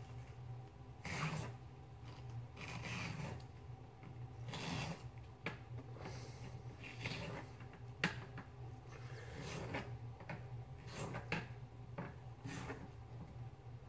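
Food being prepared on a kitchen counter: repeated scraping and rubbing with a few sharp knocks, the loudest about eight seconds in.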